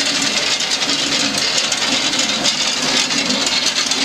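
Water-powered Norwegian millhouse mill running: the millstone turning under its grain hopper with a steady, dense rattling clatter and a low hum.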